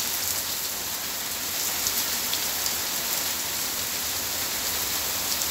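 Heavy rain pouring onto paved ground standing in water and onto garden plants: a steady dense hiss, with scattered sharp ticks of nearby drops.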